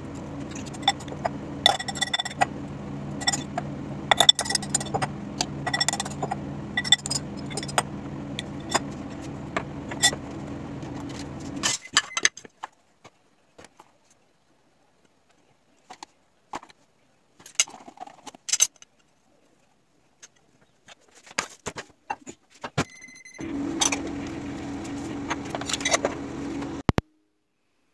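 A metal spoon clinks and scrapes against a glass mixing bowl while vegetables are stirred, with sharp ringing clinks over a steady low hum. About 12 seconds in the hum and clinking stop, leaving a few scattered light knocks and a short beep. The hum and clinks return near the end.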